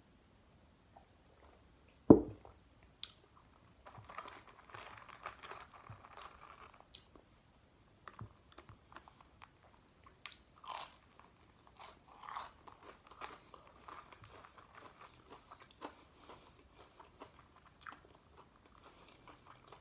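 Close-up chewing and crunching of food, with irregular soft crackles of bites. A single loud thump about two seconds in stands out above the eating.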